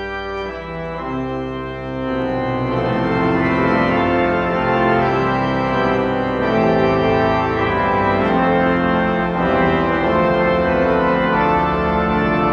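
Pipe organ playing sustained chords over a held bass, growing fuller and louder about two seconds in.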